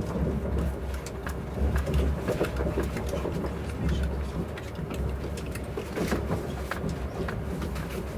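Cabin noise inside a Lastochka ES1P electric train car running under diesel-locomotive haulage: a steady low rumble that swells and eases, with frequent clicks and rattles from the wheels and car.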